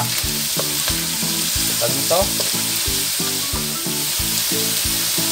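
Ground meat with diced carrots, potatoes and chayote sizzling as it stir-fries in a wok, turned over and over with a wooden spatula scraping the pan.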